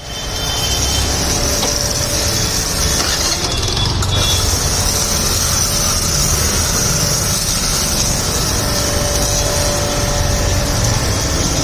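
High-pressure car washer pump running steadily: a low motor hum under a constant high hiss.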